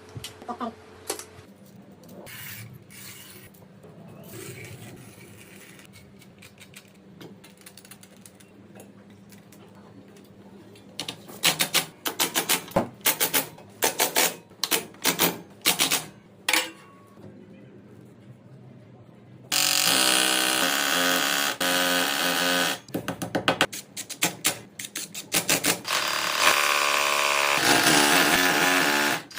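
Sharp clicks and knocks of hand work, then a power tool running loudly in several runs with short breaks, starting about two-thirds of the way through.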